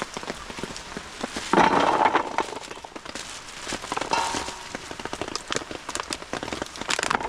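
Heavy rain pattering on a canvas hot tent, with louder bursts of handling noise from cooking about a second and a half in and again around four seconds.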